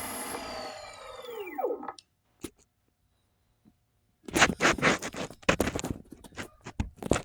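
Electric skateboard motor whining as it spins down, its pitch falling until it stops about two seconds in. After a short silence come scraping and clicking handling noises.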